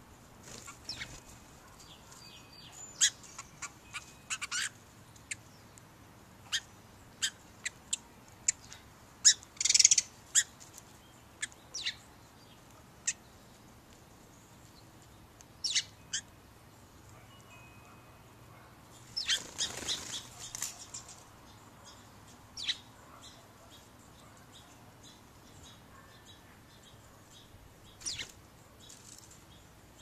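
Sparrows at a ground seed patch: scattered short, sharp ticks, with two brief flurries of wing flutter about ten and twenty seconds in, and faint birdsong behind.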